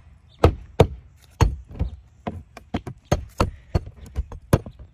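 Flat pry bar levering a lap-siding board out and letting it knock back against the wall, a quick, irregular run of sharp knocks and clacks, pulling it out and pushing it back in to work a nail loose.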